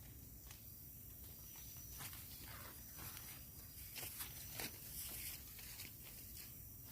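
Irregular rustling and light clicks, strongest about four to five seconds in.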